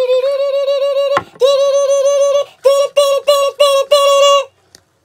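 A high-pitched, synthetic-sounding singing voice holds a note, breaks off with a short click just over a second in, holds another note, then sings five short notes and stops.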